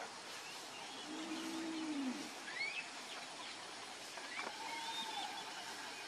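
Outdoor rural ambience over a steady hiss: a low drawn-out call lasting about a second near the start, then scattered short bird chirps and whistles, some rising quickly in pitch.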